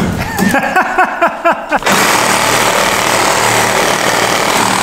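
A run of short scrapes and knocks, then from about two seconds in a DeWalt reciprocating saw cuts steadily through old wooden wall framing.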